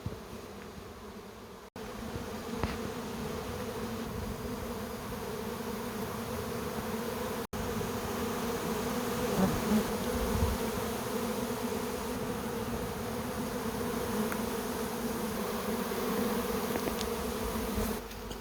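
Honeybee swarm buzzing: a dense, steady hum of thousands of bees in the air as the swarm settles onto a bush. Two brief dropouts break it, about two seconds in and again near the middle.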